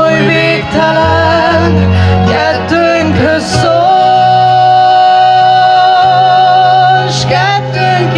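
Music: the song's instrumental saxophone solo playing from the backing track over a steady bass line, with one long note held for about three seconds near the middle.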